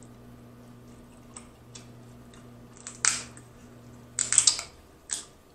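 Cooked snow crab legs being snapped and cracked apart by hand: a sharp crack about three seconds in, then a loud burst of crackling shell a second later and one more snap near the end.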